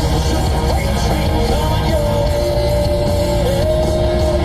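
Loud heavy metal rock music with a held, sliding sung vocal line over a dense, steady band of instruments.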